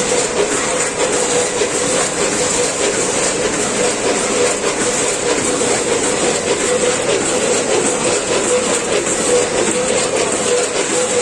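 Gantan GT14 SPA multihead weigher running with a Packit GT5S bagging machine at 100 packs a minute: a dense, steady rattle of puffed snack pieces tumbling over the steel feed pans and through the weigh hoppers, over a continuous machine hum.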